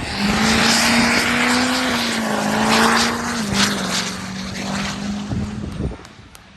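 A motor vehicle's engine running loud and steady, dropping a step in pitch about halfway, then cutting off abruptly near the end.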